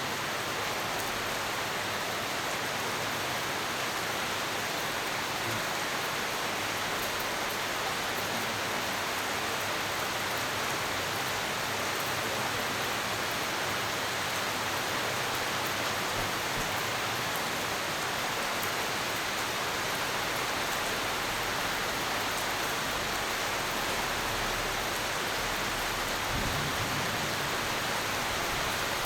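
Steady, dense rain falling, an even hiss of many drops with no break.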